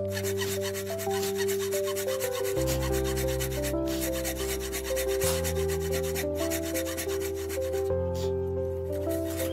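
Thin-bladed hand saw cutting into a wooden block, a fast run of rasping back-and-forth strokes. Background music with a melody and bass plays underneath.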